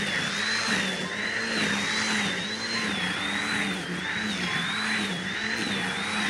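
Corded electric string trimmer running steadily as its line cuts tall grass, its motor whine wavering slightly up and down in pitch under the load.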